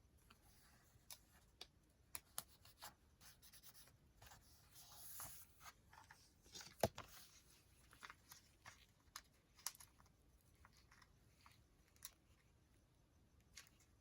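Faint handling of journal pages: scattered small ticks and taps of paper, with a brief soft rustle about five seconds in and a sharper tick near seven seconds.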